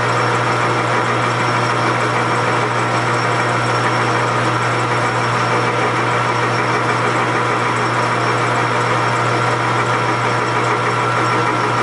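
Small metal lathe running steadily, its motor giving a constant hum with a fixed whine above it, as it turns a cartridge case neck on a mandrel.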